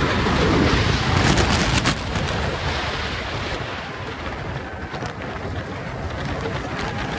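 Wind rushing over the microphone of a rider on the Xcelerator launched steel roller coaster as the train runs at speed. The rush is loudest in the first two seconds, then settles to a steadier roar of air.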